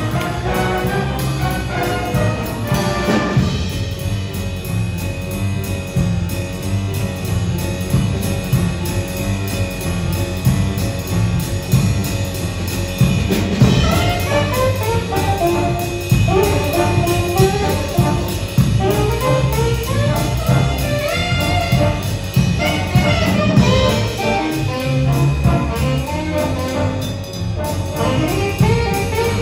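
School jazz band playing live: the full band with brass for the first few seconds, then a thinner accompaniment of piano, upright bass and drum kit, and from about halfway a saxophone solo with a busy, moving line over the band.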